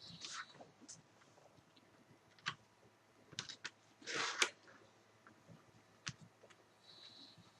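Scattered small clicks and taps from handling plastic computer parts and screws during reassembly, with a brief louder rustle and sharp click about four seconds in.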